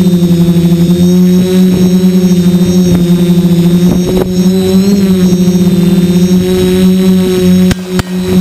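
DJI F450 quadcopter's electric motors and propellers running with a loud, steady hum that wavers slightly in pitch. Near the end it is broken by a couple of sharp clicks.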